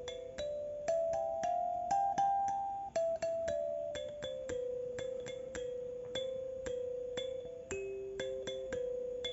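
Instrumental music: a slow melody of single struck keyboard notes, each starting sharply and fading, about two notes a second.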